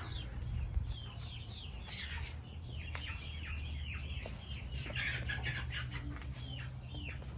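Backyard chickens clucking and calling: a run of many short, high, falling calls over a steady low hum.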